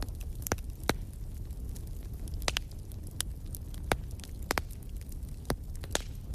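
Wood fire in a fireplace crackling, with sharp irregular pops and snaps, about a dozen in six seconds, over a low steady rumble.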